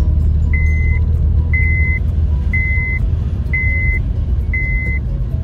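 Honda Civic driving at about 25 mph, heard from inside the cabin as a steady low rumble of engine and road noise. A high beep sounds five times over it, about once a second, each lasting about half a second.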